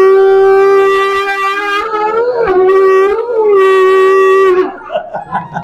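Conch shell (shankh) blown in one long, loud, steady blast, its pitch wavering up briefly twice near the middle before it stops near the end.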